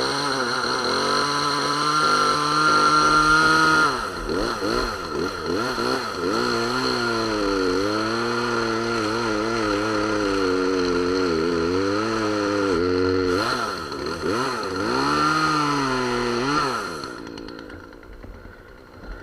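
Two-stroke chainsaw revved up to a steady high pitch, then cutting, its engine pitch dipping and recovering under load, before it drops to a stop near the end. The chain is freshly hand-sharpened and cuts well.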